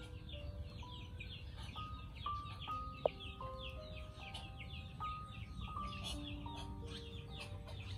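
Background music: a melody of held notes stepping from pitch to pitch over a fast, steady pattern of short high chirps, with a single sharp click about three seconds in.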